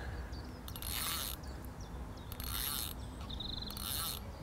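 Fishing reel being wound in, its spool and gears whirring in repeated short bursts of about half a second as the angler turns the handle to retrieve the camera float.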